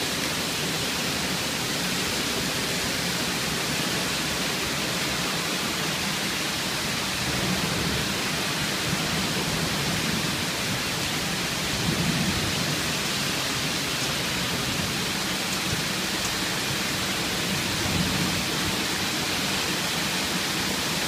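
Heavy rain pouring down steadily in a storm, swelling slightly now and then.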